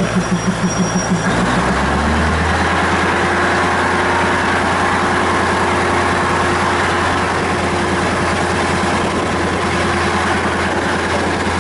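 Diesel train engine running at idle, heard from aboard. A throb for about the first second settles into a steady low hum.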